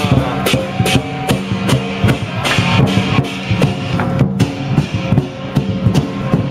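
Chinese lion dance percussion: a big drum beating steadily under repeated clashes of cymbals, with no let-up.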